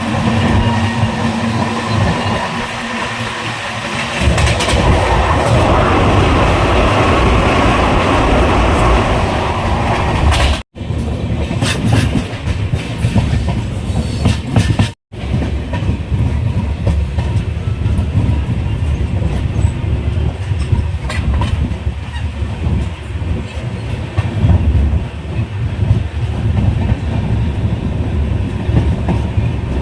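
Express train running on the rails, wheels clattering over the rail joints with a steady rumble. The sound cuts out briefly twice in the middle.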